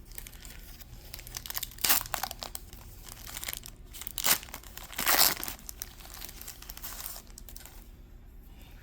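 Paper card-pack wrapper of an NHL Pro Set hockey pack being torn open and crinkled by hand, with two loud rips about two and five seconds in, the crinkling dying down near the end.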